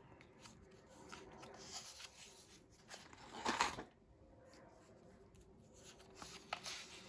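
A loose sheet of paper turned over by hand, a brief rustle about three and a half seconds in, with faint handling noise and small clicks around it.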